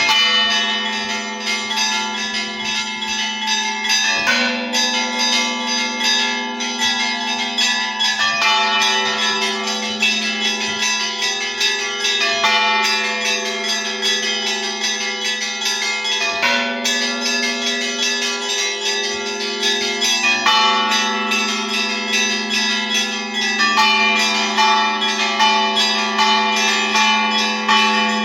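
Russian Orthodox church bells rung by hand in a festive Easter peal. Small bells chime rapidly over a sustained low bell tone, and a heavier bell is struck about every four seconds.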